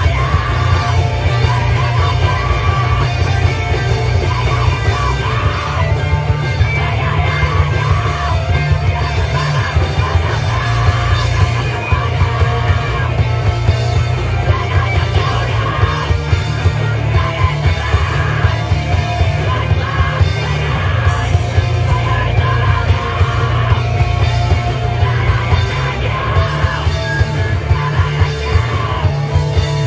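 Live band playing loud, heavy punk music: distorted guitars, bass and drums, with yelling over it.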